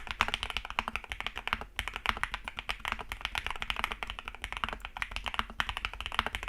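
Fast typing sound test on a Jelly Epoch custom mechanical keyboard: a rapid, unbroken run of crispy key clacks with two short pauses, about a second and a half in and again near the end. Its crispy sound is put down to the PE foam layer on top of the PCB.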